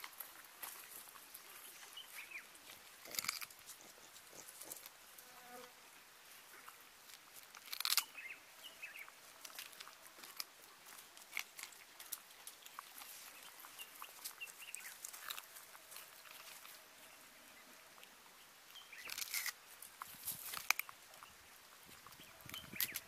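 Vervet monkeys foraging on dry ground: scattered rustling and crunching in dry leaves and litter, with a few louder crackling bursts, about 3 and 8 seconds in and again near the end. A few faint short chirps sound now and then.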